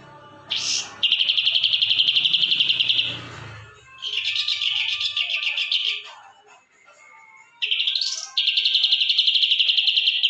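Ashy drongo singing rapid, buzzy, high-pitched chatters: three long trains of quick pulses, each lasting two to three seconds, with short pauses between them.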